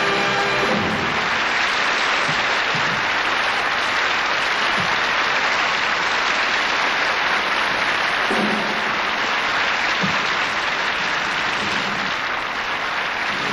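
Studio audience applauding steadily, the band's music fading out right at the start. A few soft thumps sound under the clapping.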